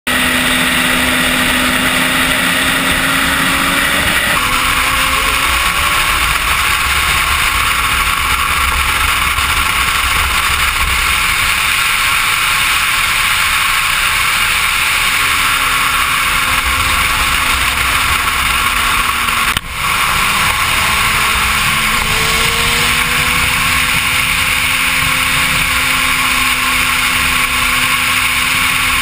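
Suzuki GSX-R sport bike's inline-four engine running at highway speed, heard under heavy wind rush, its pitch holding fairly steady with slight rises and falls. A brief dropout about twenty seconds in.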